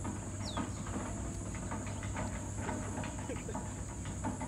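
Spinning reel clicking irregularly as the drag gives line to a hooked fish, over a steady high drone of insects.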